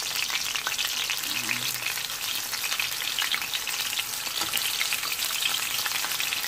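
Raw chicken pieces sizzling steadily in a little hot cooking oil in a wok, a dense crackle of fine spatters.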